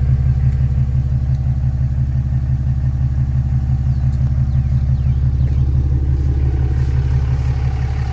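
Diesel dually pickup's engine idling steadily through its exhaust after a full emissions delete, a low, even pulsing note.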